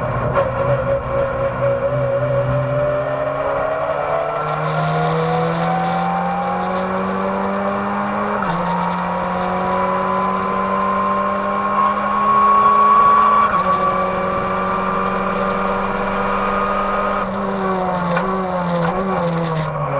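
Race car engine heard from inside the caged cabin, accelerating with a rising pitch and shifting up twice, about eight and thirteen seconds in. Near the end the pitch steps down through several quick downshifts.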